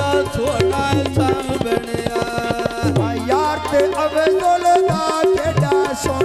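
Live Punjabi folk (mahiya) music without singing: tabla playing a fast rhythm under a sustained melody line.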